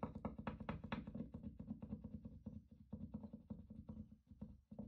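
Paint marker tip being pressed and dabbed on paper to get the brown paint flowing, a quick run of faint taps and scratches.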